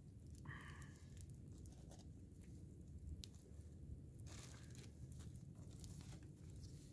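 Faint rustling and small clicks of sticks being pushed around in a small, smouldering campfire, with a short high-pitched sound about half a second in.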